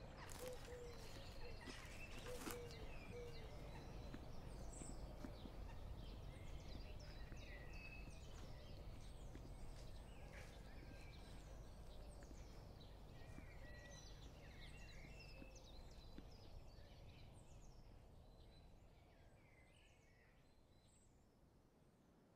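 Faint dusk birdsong: scattered short chirps and whistles from several small birds over a low steady outdoor rumble. In the first two or three seconds come a few sharp clicks and a short run of low repeated notes, and everything fades out over the last few seconds.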